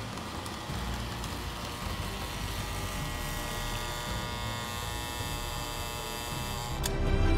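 Freshly rebuilt American Flyer Santa Fe PA diesel toy locomotive running on track, its electric motor and gearing giving a steady whirring hum that grows stronger as it draws near. Near the end it cuts off suddenly into louder music.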